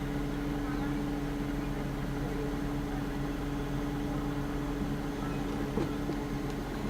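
Steady hum inside a stationary car's cabin with the engine idling: a constant low drone with one steady tone, and a couple of faint clicks near the end.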